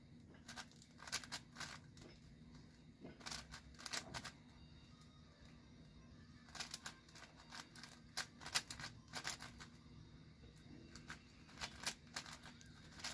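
A plastic 5x5 speed cube being turned fast, in irregular flurries of quick clicking and clacking turns, as the last edges are paired up.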